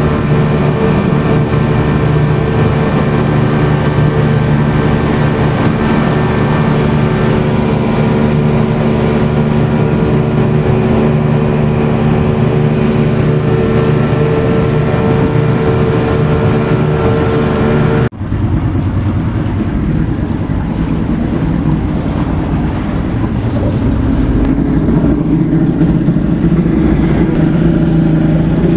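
Steady engine drone from a vehicle. About two-thirds of the way through it cuts off suddenly and gives way to a rougher, noisier engine sound.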